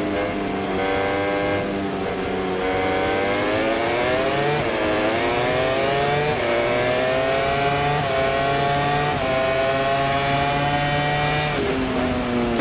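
MotoGP racing motorcycle engine accelerating hard and shifting up through the gears, its pitch climbing and then dropping back at the upshifts about four and a half and six seconds in. Near the end the pitch falls as it comes off the throttle and shifts down.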